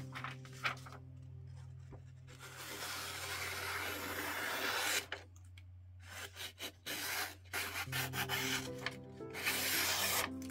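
A magazine page being sliced with a Casström No 14 SFK knife's A8mod steel blade: paper rustling and tearing in a long stretch about two seconds in and again near the end, with scattered crackles in between. Quiet background music plays underneath.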